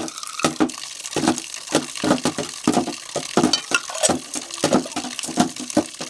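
Stainless-steel bowls and plates clinking and clattering against each other as they are washed and stacked by hand, in quick irregular clanks, with some splashing of water.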